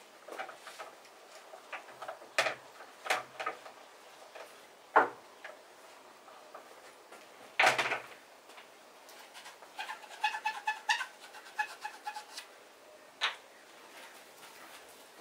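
Sharp clicks and knocks of billiard balls and cue on an outdoor pool table, a few seconds apart, the loudest two around the middle. In a lull between them a bird calls in a quick run of short chirping notes.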